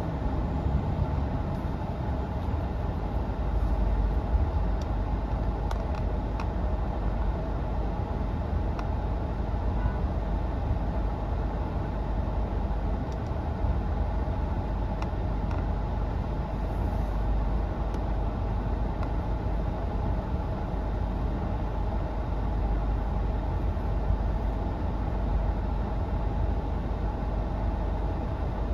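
Steady road and engine noise of a moving car: a constant low rumble with a hum above it, unchanging throughout.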